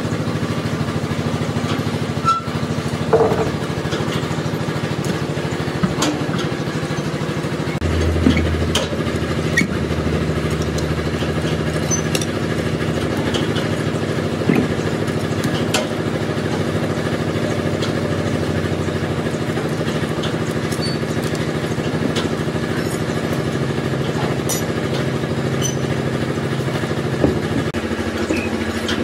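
A motor runs steadily throughout with an even hum, and a scattering of short clinks and knocks from tyre and wheel work breaks through it.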